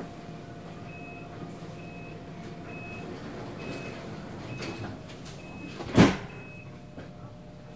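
Inside a Munich train carriage: the door-closing warning beeps, short high tones repeating about once a second, then the sliding doors shut with a loud thump about six seconds in, over the low hum of the carriage.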